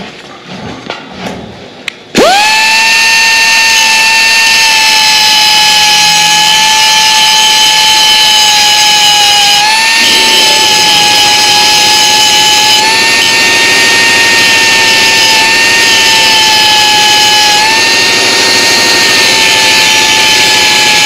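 Electric angle grinder switching on about two seconds in and running at a steady, loud high whine while grinding a welded joint on steel tubing, with small shifts in pitch.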